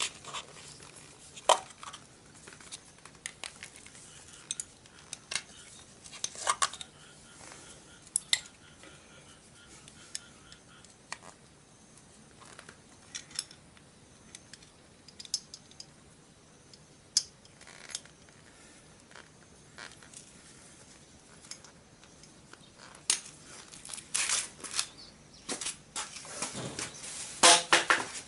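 A thin metal hand tool clicking and scraping in a Honda CB750's aluminium exhaust port as the old exhaust gasket is pried out: scattered sharp metallic clicks and scrapes, growing busier and louder near the end.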